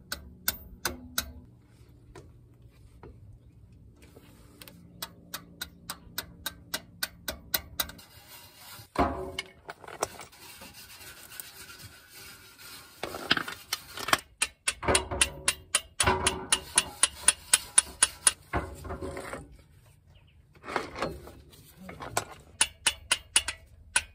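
Rapid light hammer taps, metal on metal, about four a second in several runs, with a few heavier knocks between them. A bolt is being hammered into the grease-packed pilot bearing bore so that the grease pressure pushes the bearing out.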